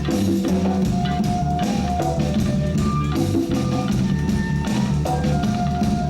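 Live reggae band playing an instrumental passage: bass line, drum kit and percussion on a steady beat, with a sustained melodic instrument line above.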